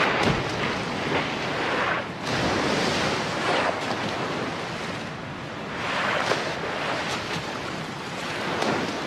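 Sea water rushing and splashing at the surface as bottlenose dolphins surge through it, the wash swelling and easing every two to three seconds.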